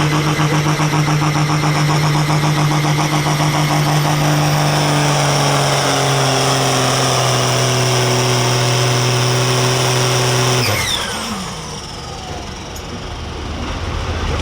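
Farm stock tractor's diesel engine at full throttle pulling the sled, its pitch slowly sinking as the engine lugs down under the growing load. About ten seconds in the throttle is cut, the engine note drops away, and a high whine winds down.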